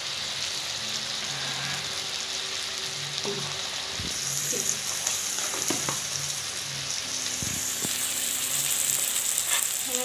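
Brinjal pieces, onion and green chillies frying in oil in a metal kadai with a steady sizzle. The sizzle grows louder about four seconds in and again near the end, with a few light knocks in between.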